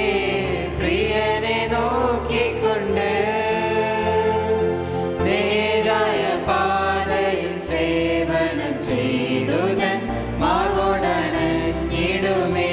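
A Christian hymn in Malayalam, sung over instrumental accompaniment, with long held notes and steady chord changes underneath.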